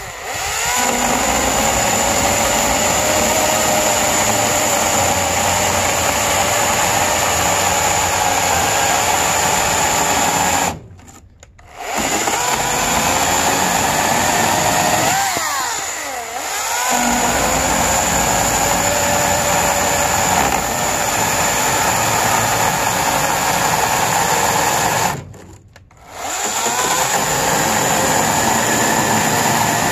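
EGO 14-inch cordless electric chainsaw cutting through white oak blocks under hard feed pressure, the chain and motor whining steadily. The motor pitch dips and recovers a few times as cuts finish, and the saw stops briefly twice, about a third of the way in and again near the end.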